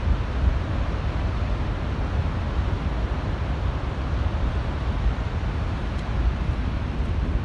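Steady roar of Niagara Falls, heard close by, with wind buffeting the microphone in an uneven low rumble.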